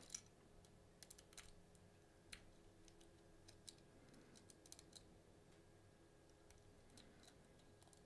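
Faint, irregular small clicks of a lock pick and tension tool working the pin stack of a Bell Armoury 200 lock, as pins are lifted and set.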